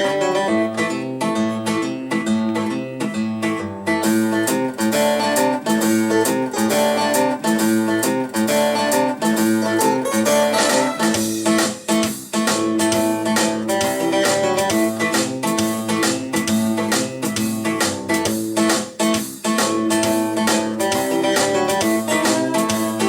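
Guitar-led blues recording played back through KEF Q Concerto Meta three-way standmount loudspeakers driven by a Cyrus One Cast amplifier. The music gets fuller and brighter about four seconds in.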